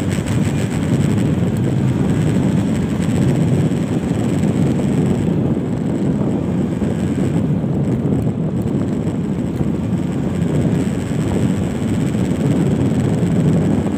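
Steady wind rush buffeting the phone's microphone on a moving motorcycle, mixed with the bike's running noise.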